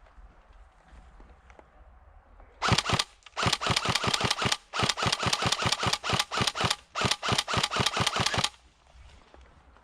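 Airsoft gun firing full-auto, about four rapid bursts of closely spaced shots, roughly eight to ten a second, starting a few seconds in and stopping shortly before the end.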